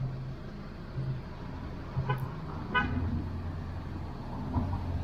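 Low steady hum of an idling car engine, with a few light clicks and crinkles as the decal's plastic transfer film is rubbed down and peeled off the rear glass.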